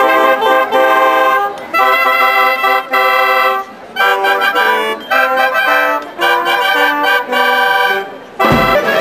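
Children's school wind band of clarinets and brass playing a tune together in short phrases with brief pauses between them. The playing breaks off suddenly shortly before the end.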